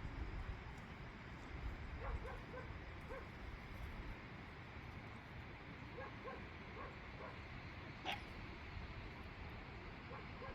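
A dog giving short, faint whimpering yips in small clusters, over a low wind rumble on the microphone. One sharp click comes about eight seconds in.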